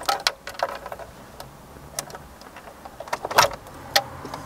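Plastic cable connectors being pressed and pulled off the back of a car head unit, with cables and the wiring loom being handled. A scatter of sharp clicks and rattles, the loudest a little over three seconds in.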